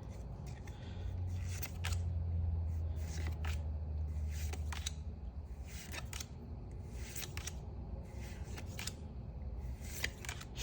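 Pokémon trading cards being slid and flicked one behind another in the hand, giving a scatter of light, crisp card clicks and rustles. A low steady hum sounds from about a second in until about halfway through.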